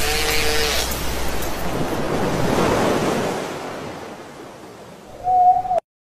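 Dolphin whistling: a short, steady whistle at the start, then a hiss like water that swells and fades, and another brief whistle near the end that cuts off suddenly.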